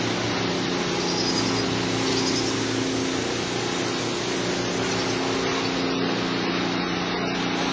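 Steady mechanical hum with a constant hiss over it, unchanging, with no strokes or breaks.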